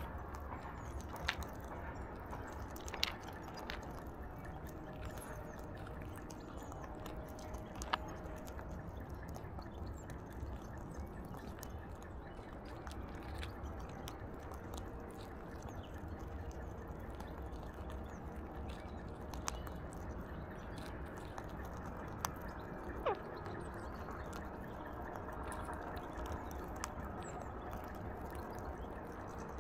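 An Alexandrine parakeet feeding at a window-sill feeder: occasional sharp clicks and taps from its beak and feet, a few seconds apart, over a steady low background hum.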